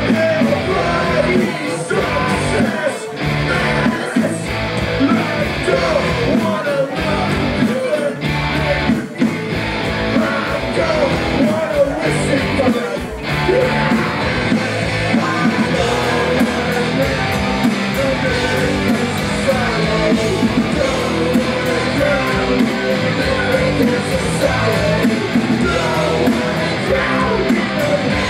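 Live punk rock band playing loud, with distorted electric guitar, drums and shouted vocals. Through the first half the band stops short on repeated brief breaks, then plays on without a break.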